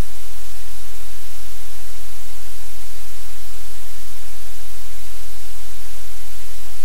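Loud, steady static hiss spread evenly across all pitches, with a low hum beneath it and no other distinct sound.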